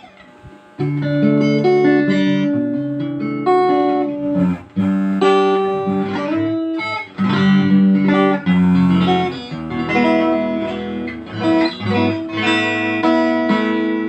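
Sunatone SG-style electric guitar played with a clean tone: ringing chords mixed with single-note lines. The playing resumes about a second in after a brief pause.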